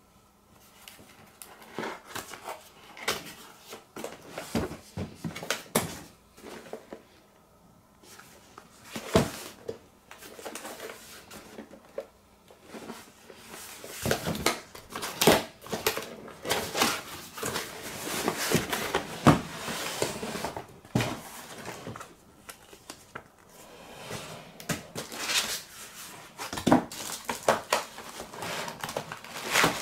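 A cardboard box being handled and opened by hand: an irregular run of knocks, scrapes and rustles, busier in the second half, with the plastic wrapping inside rustled near the end.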